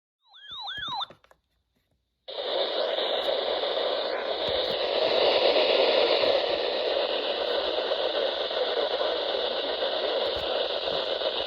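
Steady radio static hiss from a weather-alert radio broadcast, starting about two seconds in after a brief warbling tone and a moment of silence.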